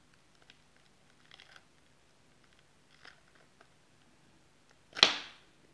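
Shattered touch glass of an iPad mini 2 being pried and peeled off its adhesive with a plastic pry tool: a few faint crackles and scrapes, then one sudden loud crunch about five seconds in.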